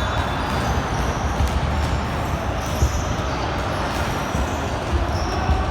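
Basketball game noise in a gym: a steady din of players and onlookers with occasional ball bounces and short high sneaker squeaks.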